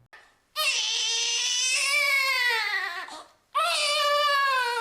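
Newborn baby crying: two long wails, each sagging in pitch at its end, the second starting about three and a half seconds in.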